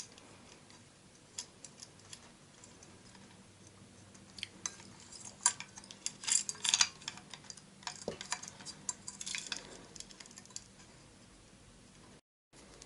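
Irregular small clicks, taps and rattles of hands connecting wires and handling small parts in a ceiling fan's switch housing, busiest in the middle stretch.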